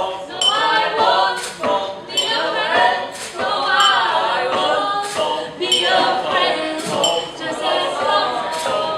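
Several voices singing together a cappella, with sharp clinking strikes on everyday objects used as percussion.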